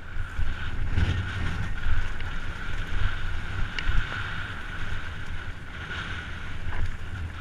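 Wind buffeting a helmet-mounted camera's microphone and the rumble of a downhill mountain bike's tyres over a dry, rough dirt trail, with knocks from bumps. A steady high buzz runs under it.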